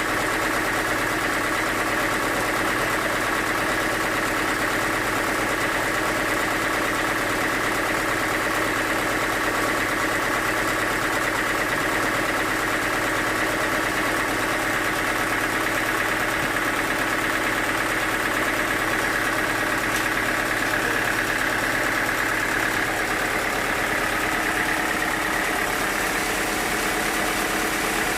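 Sawmill machinery running steadily: an even mechanical hum with several steady tones that holds without change.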